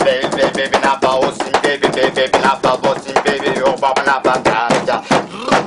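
Rapid, steady hand-slapped beats on a hard surface, several strikes a second, with a man's voice singing over them.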